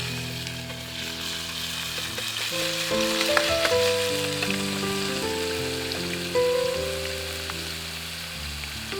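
Food sizzling and frying in a hot pan, a steady crackling hiss throughout, with background music of sustained melodic notes playing over it.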